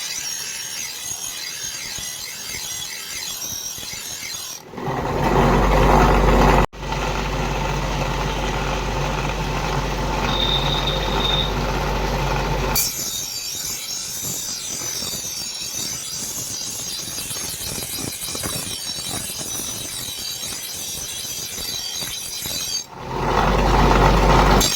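Electric power tool working metal, heard in several cut-together stretches: a hissy, high-pitched grinding noise alternating with a loud, low motor hum. The sound cuts off sharply once, a few seconds in.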